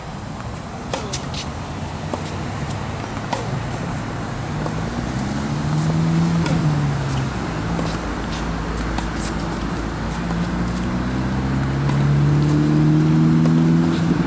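A motor vehicle's engine hum that swells twice as it passes, with a few sharp clicks of a tennis ball off strings.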